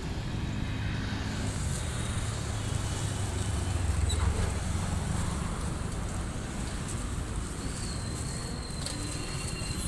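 Road traffic noise: a steady low rumble of vehicles that swells as one passes, loudest about four seconds in.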